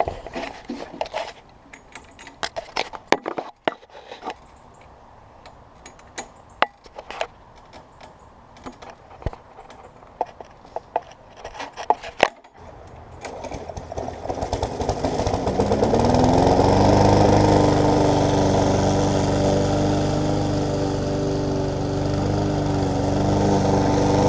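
Scattered clicks and knocks, then about thirteen seconds in a Briggs & Stratton lawnmower engine starts on its repaired, shortened pull rope, rises in pitch over a couple of seconds and then runs steadily.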